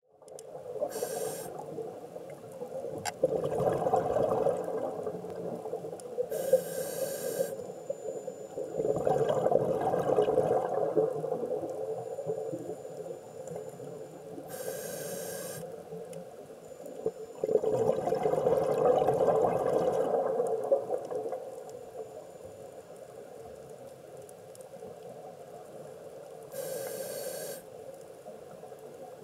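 Scuba diver breathing through a regulator underwater, heard through the camera housing: short hissing inhalations alternate with longer, louder gushes of exhaled bubbles, about three full breaths.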